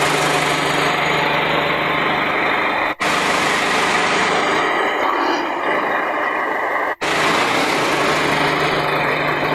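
A vehicle engine running steadily just after starting up, cutting out abruptly twice, about three and seven seconds in.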